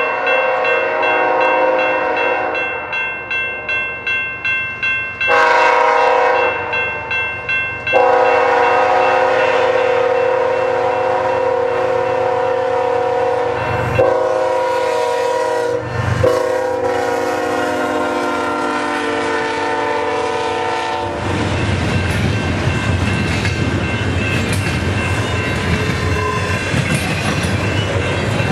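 BNSF diesel freight locomotive's air horn sounding a run of blasts as it approaches a road crossing, the last blast held long. About three quarters of the way in the horn stops and the locomotives and double-stack container cars rumble past, with steel wheels clicking over the rail joints.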